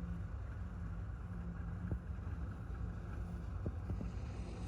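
Balkar combine harvester's diesel engine running with a steady, low drone, with wind buffeting the microphone and a few faint clicks.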